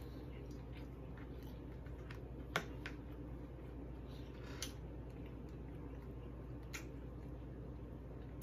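Close-miked eating: chewing a taco with a crisp baked-cheese shell, with a few sharp crunchy clicks, the loudest about two and a half seconds in, over a steady low hum.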